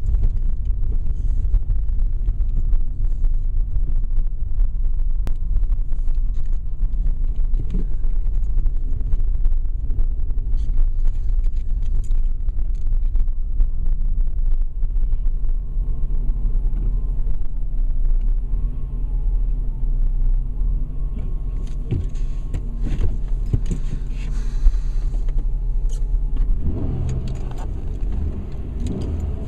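A Ford Cougar's 2.5-litre V6 idles steadily, heard from inside the cabin as a low rumble with a few small clicks. Near the end the revs rise.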